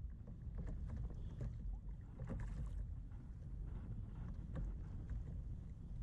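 Wind rumbling on the microphone over choppy sea, with water slapping against the plastic hull of a fishing kayak in scattered short knocks and splashes.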